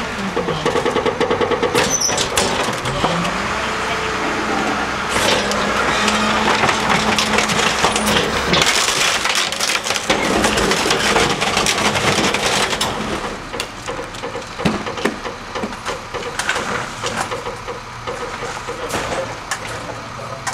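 Heavy machinery running with a whine that falls and rises, then holds steady, while wood and debris crack and crunch. The crunching is densest in the first half and eases after about thirteen seconds.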